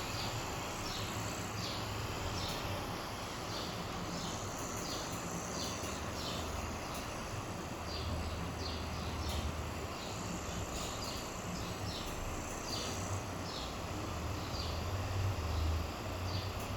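Short high chirps, like insects, repeat irregularly a few times a second over a low steady hum.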